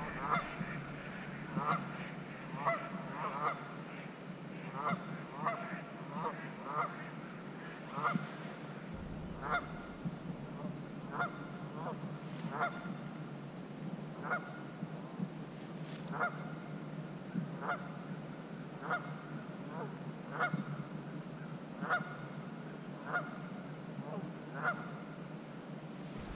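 Geese honking over and over, short calls in quick runs for the first few seconds, then single honks spaced a second or so apart.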